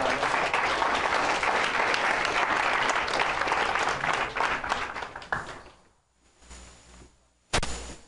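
Audience applauding, fading out about five and a half seconds in. Near the end there is one brief, loud thump.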